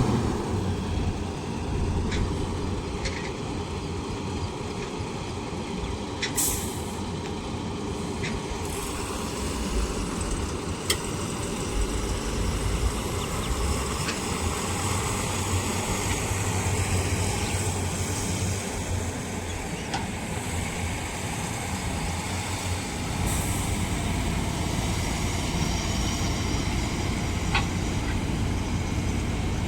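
Heavy diesel machinery, the excavator and dump trucks of a soil-loading job, running steadily, with two brief hisses about six seconds in and again near the three-quarter mark.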